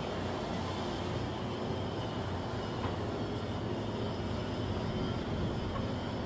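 Steady mechanical drone of shipyard machinery, a low even hum under a broad rushing noise that holds level throughout.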